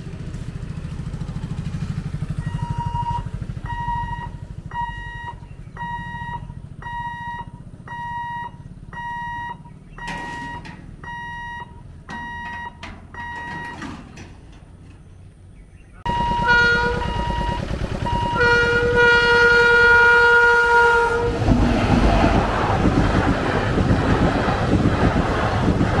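An electronic warning hooter at the level crossing beeps steadily, about once every 0.7 s. Then an Indian Railways express train sounds its horn, a short blast followed by a long one of about three seconds. The passenger coaches then rush past the crossing with a loud, continuous rumble.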